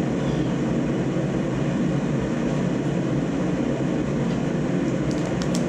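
Steady rumbling whir of a shop heater running, with a few light clicks near the end.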